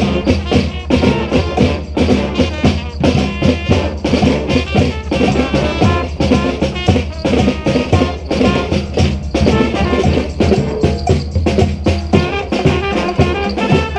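Street brass band playing a salsa tune, with drums and percussion keeping a busy, steady rhythm under the horns.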